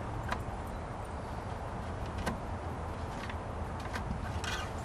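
A few faint clicks and scrapes of a plastic dipstick cap being worked loose from a lawn mower engine's oil filler tube, over a steady low background rumble.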